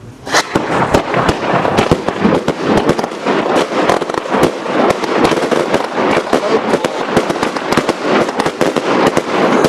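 Three Weco Aquila consumer firework batteries, chained so that they fire in quick succession, shooting off a rapid, unbroken stream of launch shots and aerial bangs, many per second. It begins suddenly just after the start.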